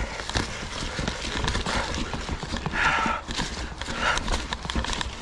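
Ibis Ripmo V2 full-suspension mountain bike rattling over a rocky, pebbly trail: a rapid, irregular clatter of tyre and frame knocks.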